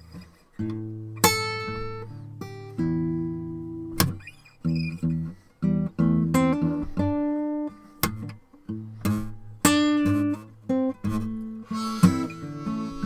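Acoustic guitar playing an instrumental blues opening: picked notes and chords that ring out and fade between strokes.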